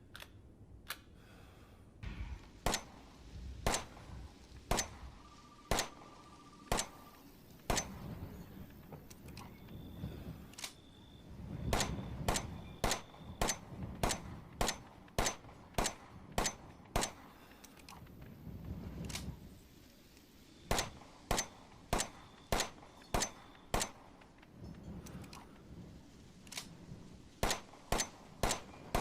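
Glock 17 pistol sound effect: a long series of sharp, short shots with a metallic ring, fired singly at irregular intervals and in quicker runs of about two to three a second near the end.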